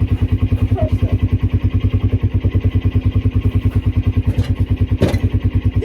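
Old Husqvarna lawnmower engine running steadily just after a cold start, close to its exhaust, with a rapid even firing beat of about ten pulses a second. It is idling a little high.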